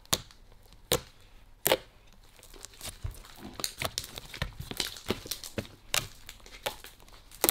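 Fingers poking and squeezing a soft, sticky glue slime, making sharp wet pops: a few spaced about a second apart at first, then a quicker run of small crackling pops and squelches.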